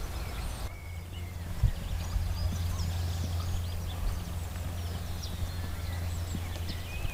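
Hoofbeats of a Belgian warmblood (SBS) gelding cantering under a rider on a sand arena, heard over a steady low rumble. Short high bird chirps sound throughout and become more frequent near the end.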